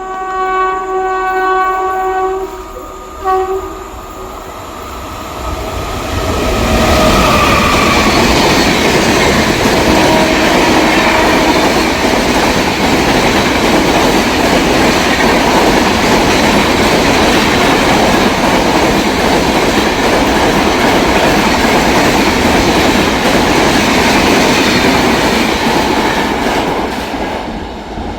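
Train horn sounding a long blast, then a short second one, followed by a train running through the station at speed: a loud, steady rush of wheels on rail for about twenty seconds that begins to fade near the end.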